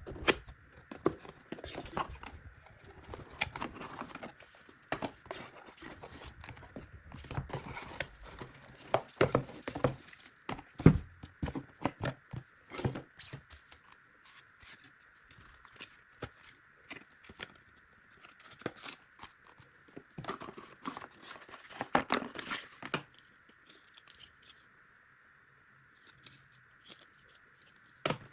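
A boxed speaker being unpacked by hand: irregular rustling, tearing and crinkling of packaging with small knocks, busy for most of the stretch and thinning out near the end.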